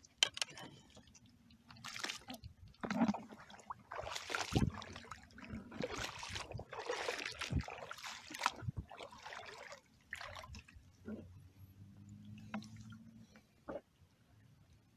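Shallow water splashing and sloshing in irregular bursts for several seconds, then dying down to a few small drips and splashes near the end.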